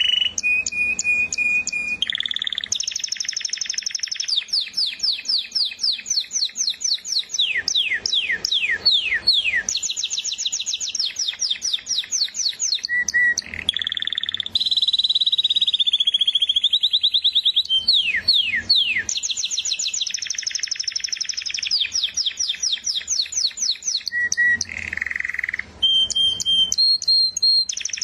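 Canary singing a long, continuous song of rapid trills and phrases of quickly repeated notes, including runs of fast downward-sweeping notes, with only brief pauses between phrases.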